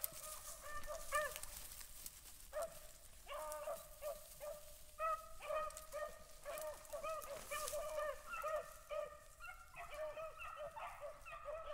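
A pack of rabbit-hunting hounds baying as they run a rabbit's trail: many short, overlapping, rising-and-falling cries, fairly faint, growing busier a few seconds in.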